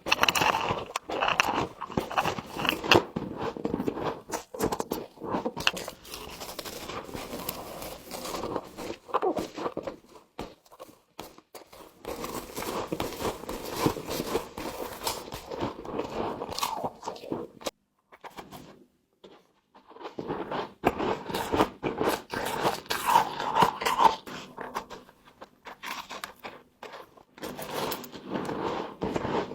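A person biting into and chewing frost close to the microphone: dense, crackling crunches, with a pause of about two seconds roughly two-thirds of the way through.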